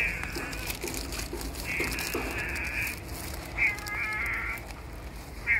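A stray cat meowing, three high calls, the middle one the longest.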